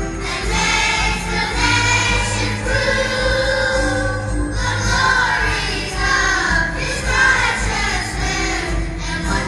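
A large children's choir singing a Christmas carol over amplified instrumental backing with a steady beat.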